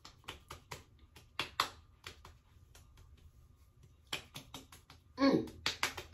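Fingertips and palms patting and tapping the skin of the face, giving quick light slaps in irregular flurries. A short falling hum from the person comes a little after five seconds in.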